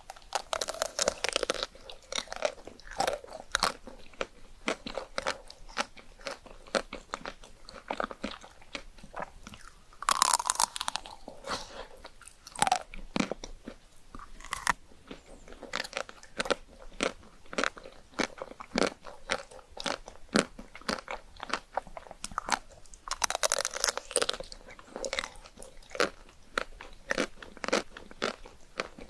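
Close-miked mukbang eating of chocolate ice cream: crunchy bites followed by steady, rapid wet chewing clicks. Three louder crunching bites come near the start, about a third of the way in, and near the end.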